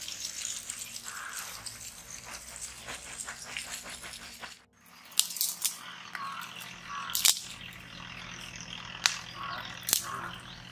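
Lump charcoal pouring from a plastic sack into an earth pit, a dense continuous rattle. After an abrupt break it gives way to a charcoal fire burning, with four or five sharp single cracks spread over the rest.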